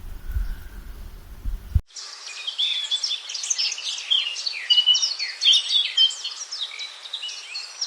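A dense chorus of many small birds, with overlapping rapid chirps, trills and short whistles, starts abruptly about two seconds in. Before it comes a low, muffled thudding.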